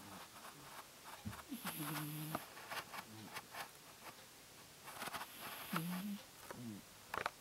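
Domestic cat snoring in its sleep: a low, pitched snore with a breathy hiss, heard twice a few seconds apart, with a few faint clicks near the end.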